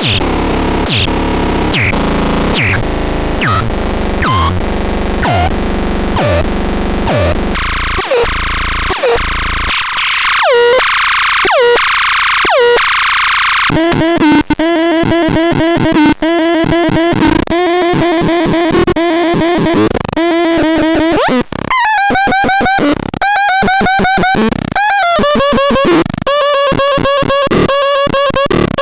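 Synthesizer sound demo: a fast repeating electronic pattern of notes that zap downward in pitch, with the bass dropping out for a few seconds about ten seconds in, then a run of pitched synth notes each bending down at its end.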